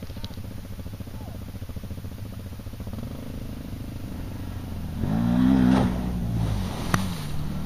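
ATV engine running and building in revs as it approaches, then revving hard about five seconds in as the quad plunges into the stream, with a rush of splashing water. A single sharp knock comes near the end.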